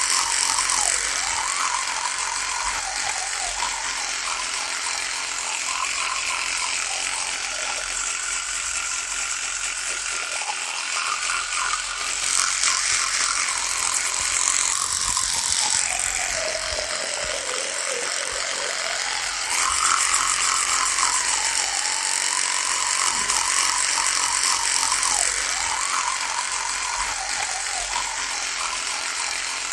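Electric toothbrush buzzing steadily with a rattling hiss. Its hum wavers in pitch and sinks lower for a few seconds about halfway through before rising again.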